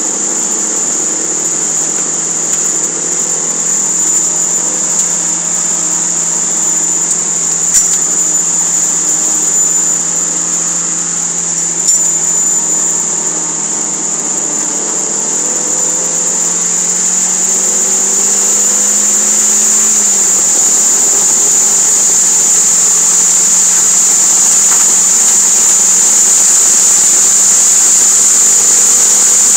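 Toyota MR2 Spyder's 1.8-litre four-cylinder engine heard from inside the cabin, running under load as the car accelerates, its pitch rising steadily about halfway through and dipping briefly near two-thirds in. A steady high-pitched whine runs over it throughout.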